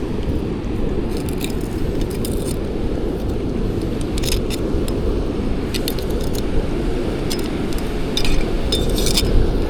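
Scattered light clicks and clinks of a crab snare and a Dungeness crab being handled, over a steady low rumble of beach wind and surf.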